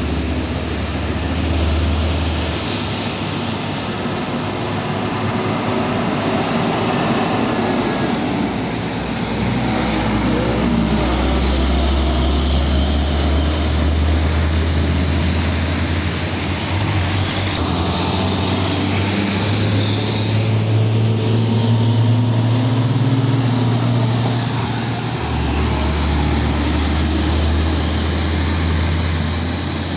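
Heavy diesel trucks passing close by one after another on a wet road: a low engine drone that swells and fades with each passing truck, over a steady hiss of tyres on wet asphalt.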